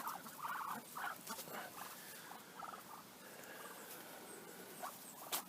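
Farm poultry calling in a quick series of short notes over the first second and a half, then a few fainter calls. A sharp click comes near the end.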